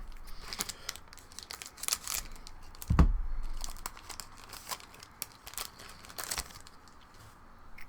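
Foil booster pack wrapper crinkling and being torn open, with scattered crackles and one dull thump about three seconds in.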